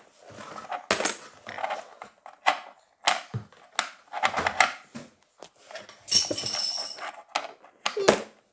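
Small wooden fish pieces clacking and knocking as they are set and pressed into a wooden fishing-game board, in a string of sharp clicks. About six seconds in, a shrill squeak lasts about a second.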